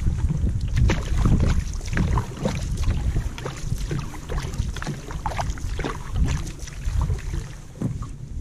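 Wind buffeting the microphone in a heavy, uneven rumble, with small waves irregularly slapping and splashing against a canoe's bow as it moves across choppy open lake water.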